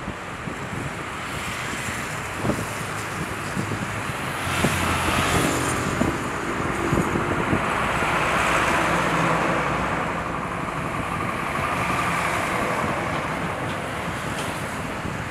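Distant jet engines of a Boeing 747-400F freighter taxiing: a steady rushing roar that swells about five seconds in and eases toward the end.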